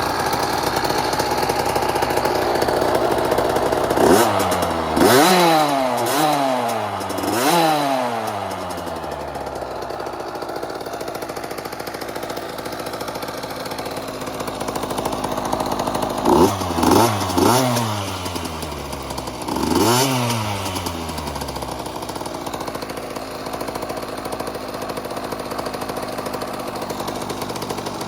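KTM SX50 Mini dirt bike's small two-stroke single-cylinder engine idling while being warmed up before an oil change, given short throttle blips that rev up and drop back to idle: a few about four to eight seconds in, and another few just past the middle.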